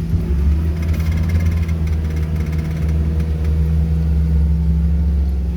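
Suzuki Jimny's engine running steadily at low revs as the 4x4 crawls along an off-road trail, with a brief light rattle about a second in.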